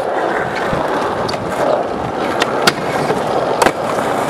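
Skateboard wheels rolling over asphalt in a steady rumble, with several sharp clacks of boards striking the ground, the loudest a little under three seconds in and again near four seconds.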